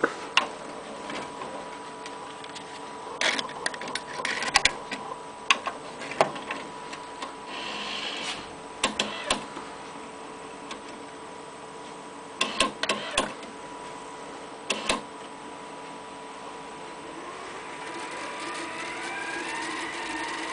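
Sony DAT deck's tape transport working: a run of sharp mechanical clicks and clunks, with a short whirr about eight seconds in, then a motor whine that rises in pitch over the last few seconds as the tape winds.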